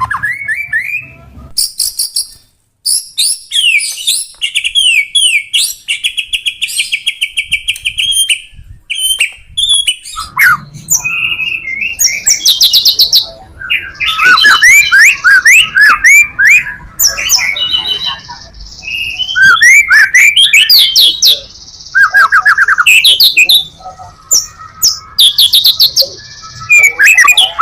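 White-rumped shama (murai batu) singing loudly in a fast, ever-changing full song: rapid trills, rising and falling sweeps, and rattling runs of repeated notes, with a brief pause about two and a half seconds in.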